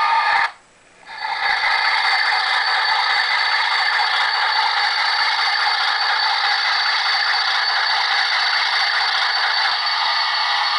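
Onboard sound of an Atlas HO-scale RS-11 model locomotive playing an Alco diesel engine running, thin and without deep bass, mixed with the rattle of model freight cars rolling slowly on the track. The sound cuts out for about half a second near the start, then resumes steadily.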